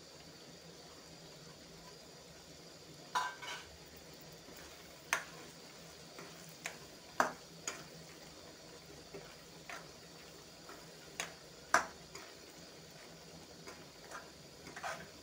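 Metal spoon stirring a thick chicken heart curry in a metal kadai: irregular sharp clinks and scrapes of the spoon against the pan, about a dozen, over a faint steady sizzle.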